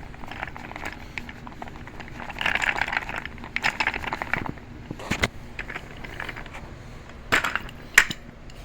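Office chair caster wheels being handled and their stems pushed into the sockets of the chair base: scattered rustling and clattering with a few sharp clicks in the second half.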